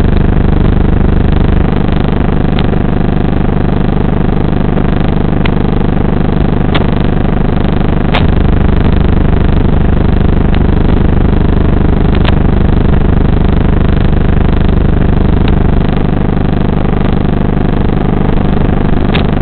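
Loud, steady electrical buzz from an analog FPV video link's audio channel, recorded in the goggles, with scattered faint clicks. The pitch stays fixed whatever the drone's throttle, so it is the link's own hum rather than the motors.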